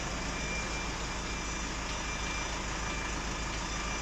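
An engine idling steadily: an even low drone with a faint high whine over it.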